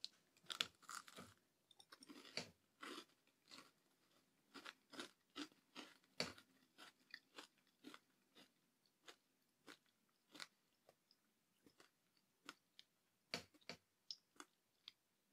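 Faint crunching of a person biting into a crisp, crackly maple ginger cookie and chewing it: a run of short crunches about two a second, loudest in the first second and again about thirteen seconds in.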